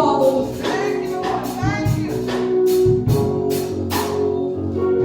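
Worship music: singing over held chords with a steady percussion beat.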